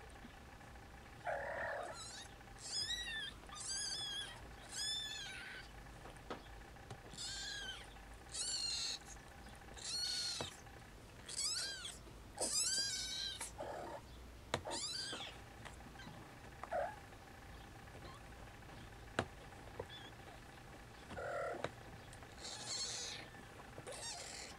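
Two-week-old Snowshoe Siamese kittens mewing: about a dozen high-pitched, wavering cries in quick succession, then a pause and two more near the end. A few lower, shorter calls are mixed in.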